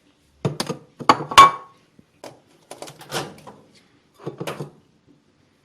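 A plate being handled and set down, giving a string of knocks and clatters, the loudest about a second in with a short ring.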